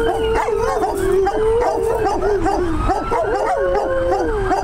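Several dogs howling together: one long, wavering howl held steady over many short, rising-and-falling yips and howls from the others. They are howling along with passing fire truck sirens.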